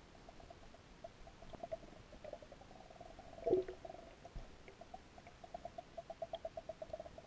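Faint underwater sound picked up by a submerged camera in a stream: a rapid series of short pulsing ticks, quickening to about five or six a second, with one louder gurgle falling in pitch about three and a half seconds in.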